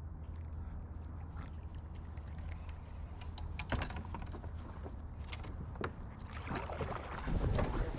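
Kayak being paddled, with the paddle dipping into the water and a few sharp knocks, probably of paddle against hull, in the middle. Busier splashing near the end.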